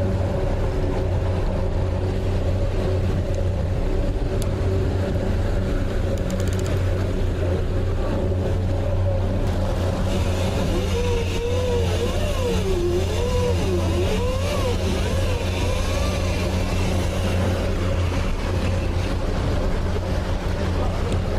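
A fishing boat's engine runs steadily at trolling speed, a constant low drone over the rushing wash of the wake. From about halfway through, a wavering pitched tone rises and falls over it for several seconds.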